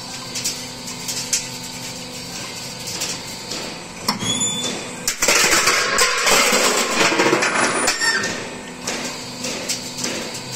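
Floor-decking roll-forming machine running steadily with light clicking. About four seconds in there is a sharp knock, then nearly three seconds of louder rushing, scraping metal noise with brief squeals as the hydraulic shear cuts the formed steel deck sheet. The steady running then resumes.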